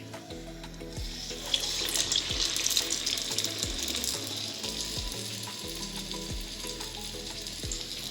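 Urad dal vadas deep-frying in hot oil, a steady sizzle that swells about a second in as fresh batter goes into the oil. Background music with a regular beat plays underneath.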